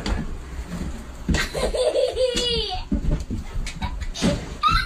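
A young child laughing in quick repeated bursts, with a few thumps in between.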